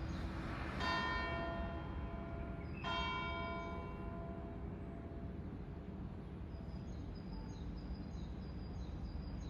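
Church bell tolling: two strikes about two seconds apart, each ringing on and slowly fading, over a steady low background rumble.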